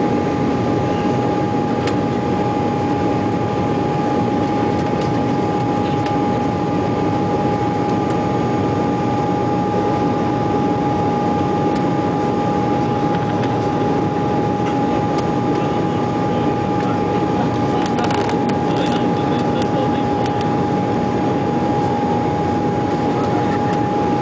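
Steady cabin noise of an Embraer E-190 jet airliner climbing after takeoff: its GE CF34 turbofan engines and the airflow make a loud, even rush, with a steady tone held throughout.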